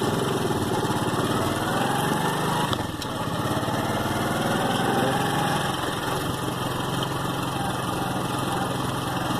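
Small motorcycle engine running steadily as the bike is ridden, its note dipping briefly about three seconds in.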